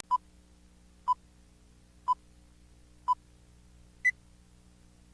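Five short electronic beeps, one a second: four at the same pitch, then a fifth an octave higher, over a faint steady hum.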